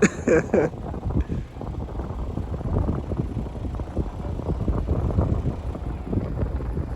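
Wind buffeting the microphone: a steady low rumble with irregular gusty surges.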